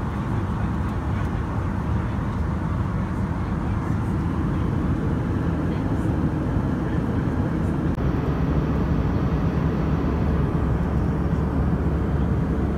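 Steady cabin noise of an Airbus A320-200 in cruise flight: an even, low rush of airflow and engine noise.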